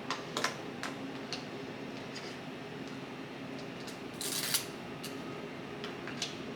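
Café background: a steady low hum of room noise with scattered light clicks and clinks, and a short hissing scrape about four seconds in.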